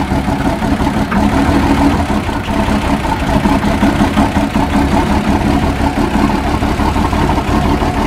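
Rear-mounted diesel engine of a Mercedes bus motorhome idling steadily just after a cold start at about −8 °C, with an ugly-sounding rumble.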